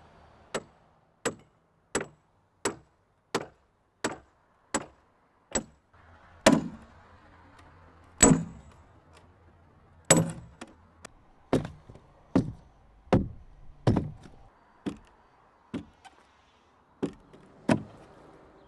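A hand tool chopping into the wooden log of a dugout canoe being hollowed out, in a steady run of sharp blows about three every two seconds. A few heavier strokes fall around the middle.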